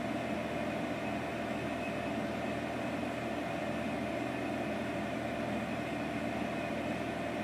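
Steady room hum with a few constant tones underneath, like ventilation in a small room, unchanging throughout.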